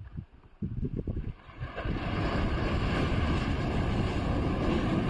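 Sea waves breaking and washing against a rocky breakwater, with gusty wind buffeting the microphone. The surf noise swells up about two seconds in and then holds steady.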